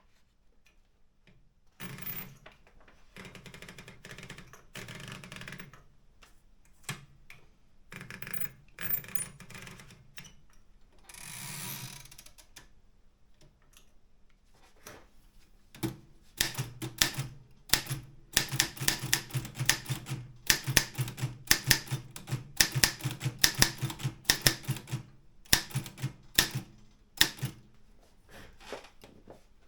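Optima M12 manual typewriter with a wide carriage. First come several longer scraping and rattling stretches of the machine being handled, then a fast, continuous run of sharp key strikes with typebar thuds, thinning to a few single strikes near the end.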